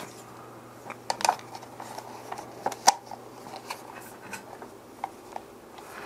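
A faceplate being fitted and pressed onto an Elgato Stream Deck: a few light clicks and taps of the parts handled against each other, the sharpest about three seconds in.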